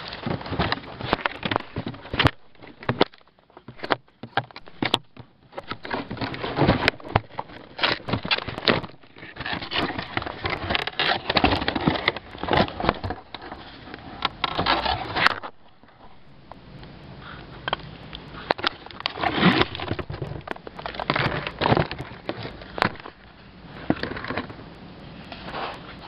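Rummaging through dumped computer gear: cardboard boxes and plastic parts rustle, scrape and crackle as they are handled and shifted, in irregular spurts with brief quieter pauses and scattered sharp clicks.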